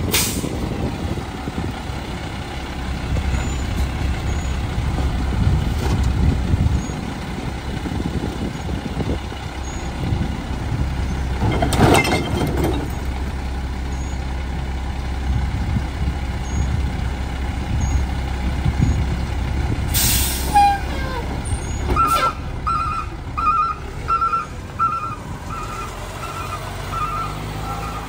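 Mack LE garbage truck idling with a steady rumble, with a clatter about twelve seconds in as cardboard goes into its side hopper. Near twenty seconds in comes a sharp hiss of air brakes, then an alarm beeps steadily, about twice a second, to the end.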